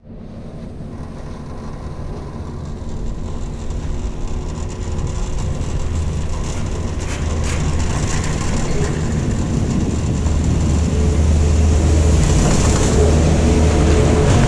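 Super Gauge chairlift running under the rider: a steady low rumble of the chair and haul rope, with a short clatter about seven seconds in as the chair passes over a tower's sheaves. The rumble grows louder as the chair comes into the top terminal.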